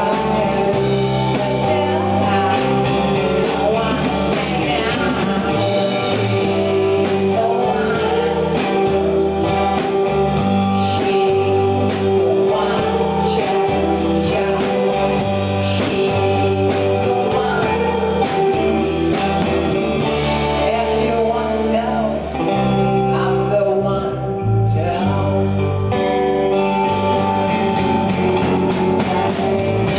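Live rock band playing a song: a male lead singer over two electric guitars, electric bass and a drum kit. The cymbals drop out for a few seconds about two-thirds of the way through.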